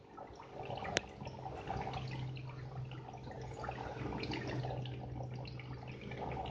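Water bubbling and dripping in aerated aquarium tanks, many small irregular drips and bubble pops over a low steady hum. A single sharp click about a second in.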